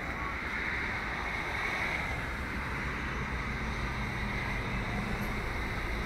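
Steady road traffic noise with wind on the microphone; about halfway in, the low hum of a vehicle engine joins it.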